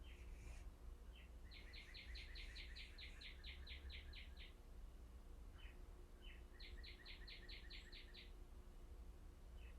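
Faint birdsong over a low steady hum: a songbird sings a fast, even trill of about five notes a second, twice, each trill led in by one or two short falling notes.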